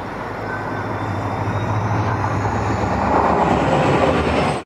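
WDP4D diesel locomotive's EMD 16-cylinder two-stroke engine working at speed as the train approaches and passes, with wheel and rail noise, growing louder. It cuts off suddenly near the end.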